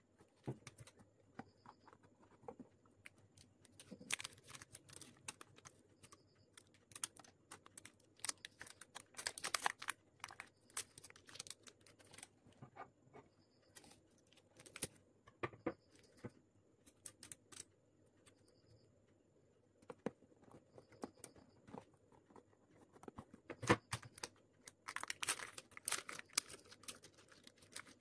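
Close handling sounds of clear adhesive tape being pulled from its roll and snipped with scissors, with scattered taps, clicks and rustles as it is pressed onto a paper-covered cardboard box; the rustling thickens about nine seconds in and again near the end.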